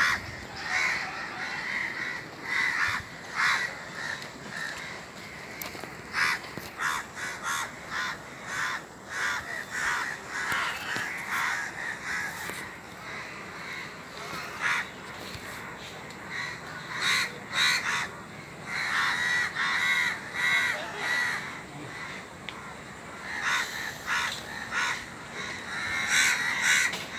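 Many birds calling over and over, short calls following one another in quick succession, with busier spells through the middle and near the end.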